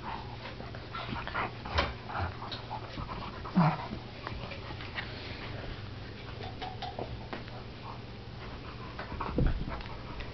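An Airedale terrier and a Picardy Shepherd puppy play-wrestling: panting and scuffling, with scattered short noises and a louder sharp one near the end.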